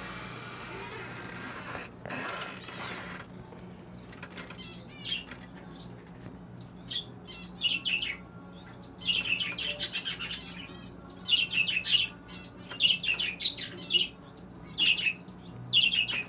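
Baby English budgerigars chirping in short high bursts, growing more frequent and louder from about seven seconds in, after a brief rustle at the start.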